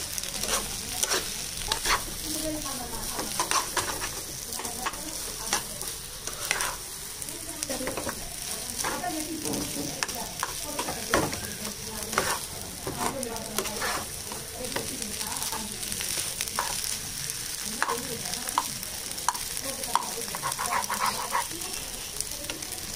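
Steel spatula stirring and scraping a thick potato mash around a frying pan, in irregular strokes and taps against the pan, over a steady sizzle of the mash frying.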